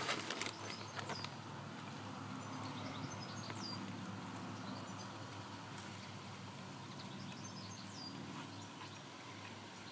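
Faint outdoor ambience: a steady low hum, with a few short, high bird chirps that fall in pitch.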